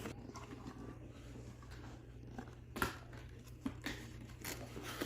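A cardboard box and its packaging being handled and opened: faint rustling with a few sharp clicks and knocks, the loudest about three seconds in.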